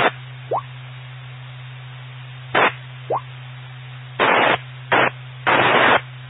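Amateur-radio repeater audio: about five short bursts of hissing static, the longest about half a second, with two brief rising chirps between them over a steady low hum, as a carrier is keyed up again and again on the repeater.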